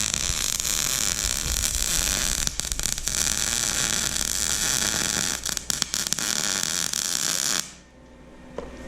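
Wire-feed welder arc running steadily with a dense crackling hiss as a bead is laid, with a few brief breaks in the middle, then cutting off near the end when the trigger is released.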